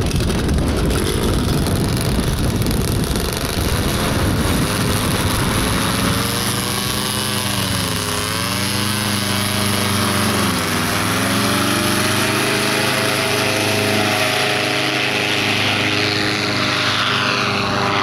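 Paramotor engine and propeller running hard, its pitch dipping and recovering twice before holding steady. In the first few seconds wind rumbles on the microphone.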